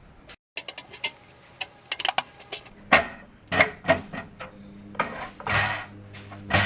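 Tire iron's flat screwdriver tip prying a hubcap off a car wheel, working around the rim: a quick series of clicks and scraping knocks, the louder ones in the second half.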